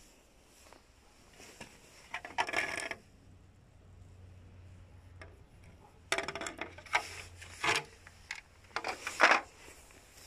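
Plastic hubcaps being handled: scraping and clattering in three short spells, as one wheel cover is put aside and the next is picked up.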